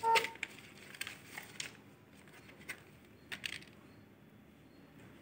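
Paper leaflets and a small cardboard box being handled, crinkling and crackling in a few short bursts, the loudest right at the start.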